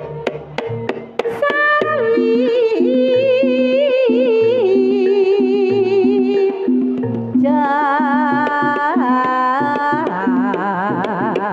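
Javanese Banyumasan gamelan music. A woman sings long held notes with a wavering vibrato over a repeating pattern of tuned notes, and a kendang hand drum strikes sharply at the start before keeping time more softly.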